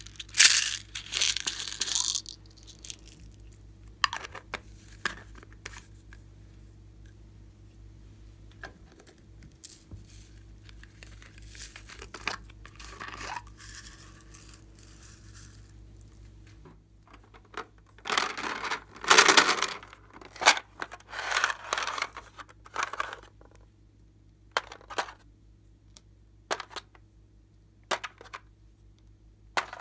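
Hands handling small plastic containers: short bursts of crinkly scraping, loudest about two-thirds through, then a run of light plastic clicks near the end as a plastic case is opened and rummaged in.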